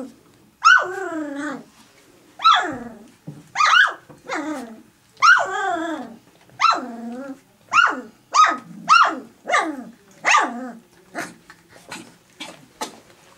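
Three-week-old golden retriever puppies whining and yelping: a string of high cries that each slide down in pitch. Near the end the calls come shorter and faster.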